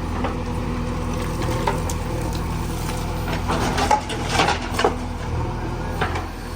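JCB backhoe loader's diesel engine running steadily while loading mud, with a burst of knocks and crunching between about three and a half and five seconds in.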